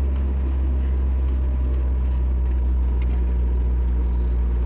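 Car's engine and road noise heard from inside the cabin while driving: a steady low rumble.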